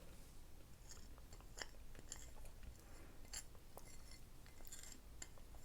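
Faint mouth sounds of a person eating a spoonful of thick, sticky carob-extract and ginger paste, with scattered small clicks and ticks.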